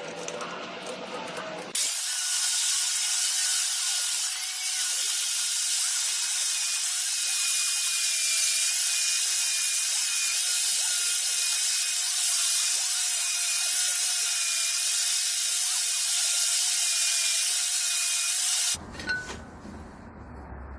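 Steady hiss of compressed air from an air-powered spray tool, starting abruptly about two seconds in and cutting off sharply near the end.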